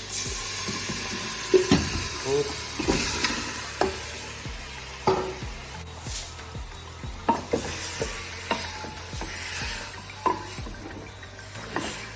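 Iguana meat sizzling in a pot of hot oil and curried onions, the sizzle jumping up as the meat goes in. A spoon knocks and scrapes against the pot again and again as it is stirred.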